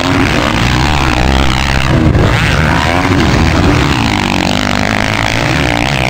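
Several 450-class four-stroke motocross bikes running hard together, their engines rising and falling in pitch as riders throttle on and off over the jumps.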